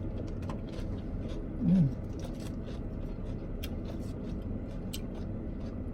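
Someone eating a mouthful of salad: scattered crisp clicks and crunches over a steady low rumble, with a short falling "mm" hum about two seconds in.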